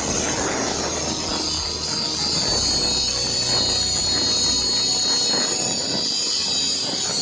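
Angle grinder with a velcro-backed abrasive disc grinding heavy rust off steel: a steady high motor whine over the rough scraping of the disc on the metal.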